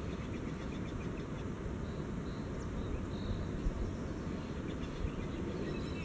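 Wind buffeting the microphone as a steady low rumble, with faint high bird chirps now and then.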